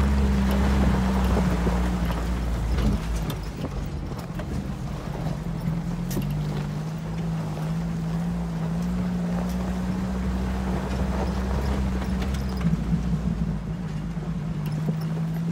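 Off-road vehicle's engine running at low speed, its pitch dropping about three seconds in and shifting again a few seconds later, with a few sharp knocks and rattles.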